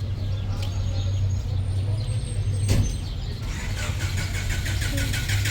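A motor vehicle engine running steadily, with a sharp knock about halfway through and a quick, even run of ticks near the end.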